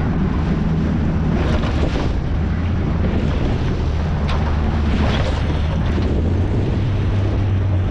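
A boat's motor running steadily with a low hum, under wind buffeting the microphone and the wash of water.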